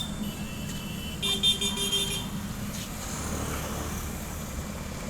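Road traffic: a steady low engine rumble, with a vehicle horn tooting in a quick series of short beeps about a second in.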